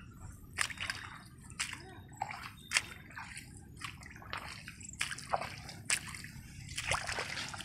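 Footsteps squelching and splashing through waterlogged paddy mud, irregular wet slaps about every half second to a second, over a steady low hum.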